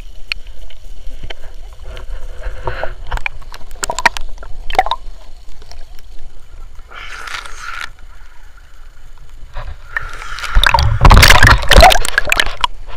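Water splashing and sloshing around swimmers in the sea, with scattered small splashes and a louder burst of splashing about eleven seconds in.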